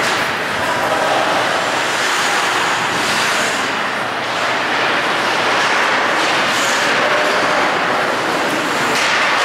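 Steady hiss of an ice rink during a hockey game, with a few brief sharper scrapes of skate blades on the ice.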